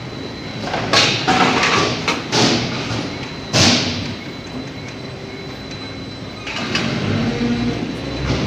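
Metal-working factory noise: several heavy thumps and clanks in the first half, the loudest about three and a half seconds in. From about six and a half seconds on, the sheet-metal roll forming line runs with a steady mechanical noise.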